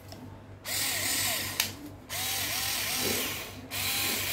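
Small 3.6 V cordless screwdriver motor running in three short bursts of about a second and a half each, with a wavering whir.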